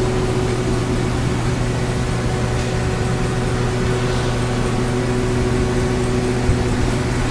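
Steady hum of running machinery, a low drone with a few steady tones over a noisy background. The highest of these tones drops out about six seconds in.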